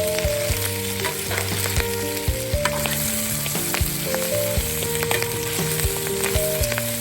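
Pork and chili bean paste sizzling as they stir-fry in a pan. A spatula stirs and scrapes against the pan now and then, giving short sharp clicks over the steady sizzle.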